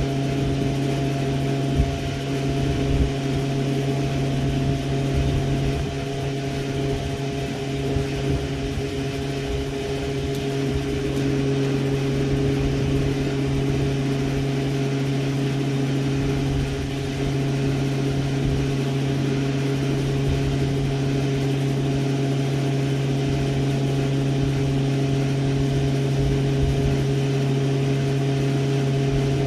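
Steady, unchanging machine hum, like an engine idling, with several constant tones over a low rumble.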